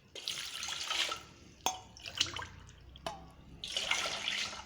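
Water poured into a cooking vessel in two pours, each about a second long and about three seconds apart, with two sharp knocks between them.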